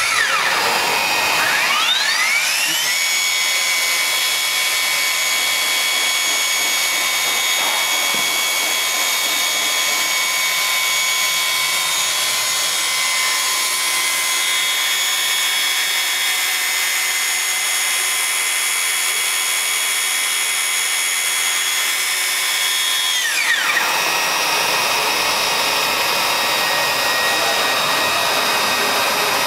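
Handheld plastic extrusion welder: its drive motor spins up with a rising whine about two seconds in, runs at a steady high whine, then winds down with a falling whine about six seconds before the end. Under it runs the steady rush of the welder's hot-air blower.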